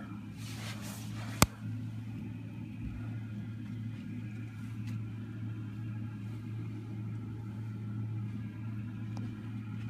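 A steady low mechanical hum, with one sharp click about a second and a half in.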